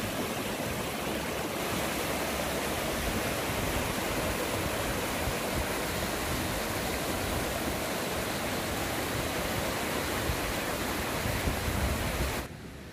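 Muddy river in flood rushing over and around rocks: a steady, full rush of water. It cuts off suddenly near the end.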